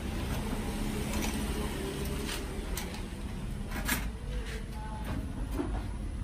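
Ice cubes being scooped out of an insulated cooler into a plastic cup: a few scattered clinks and rattles, the sharpest about four seconds in, over a steady low rumble.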